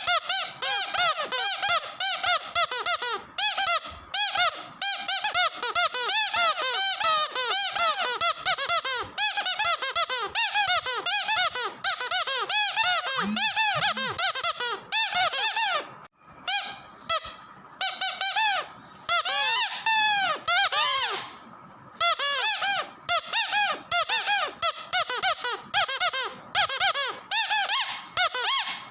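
Squeaky dog toy squeezed rapidly over and over, each squeak rising and falling in pitch, with a couple of short pauses midway.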